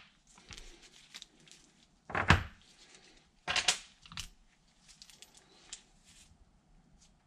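Metal parts of a rusty three-jaw lathe chuck being handled, with small clinks and two louder knocks about two and three and a half seconds in as jaws and bolts are moved and set against the chuck body.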